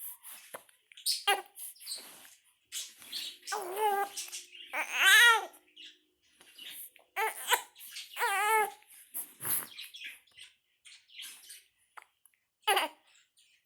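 A baby with the hiccups vocalizing in a string of short, high-pitched squeals and grunts, the loudest about five seconds in.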